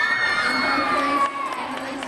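Spectators cheering at a gymnastics medal presentation. One loud, high-pitched shout rises, holds and slides a little lower, then cuts off just past halfway, leaving crowd hubbub.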